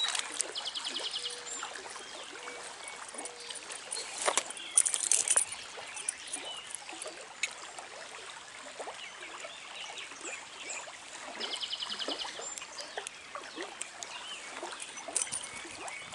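Shallow trout stream trickling and burbling steadily. A bird gives a short rapid buzzy trill twice, near the start and about twelve seconds in. A couple of brief sharper sounds come about four and five seconds in.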